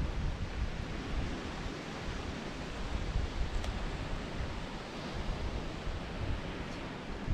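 Steady rushing noise of wind and surf, with a gusty low rumble of wind on the microphone.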